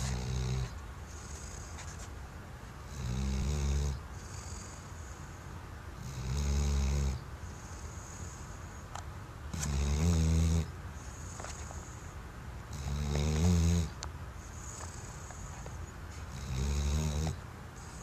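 Weimaraner snoring in deep sleep: six loud, low, rattling snores about a second long, evenly spaced roughly every three and a half seconds, each followed by a softer, higher hissing breath.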